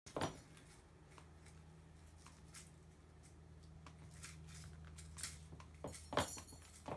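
A kitten scrabbling on a play mat and batting its hanging toys: scattered light rustles and clicks, with a few louder knocks near the end, over a faint steady low hum.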